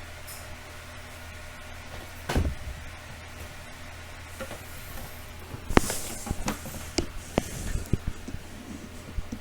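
Small parts and tools being handled on a work surface: a single knock, then a run of short clicks and taps near the end, over a steady low electrical hum.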